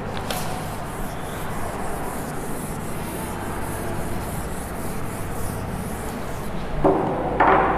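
Hand-writing strokes scratching and rubbing on a writing surface, a quick uneven run of short scrapes. Near the end two louder, short pitched sounds cut in.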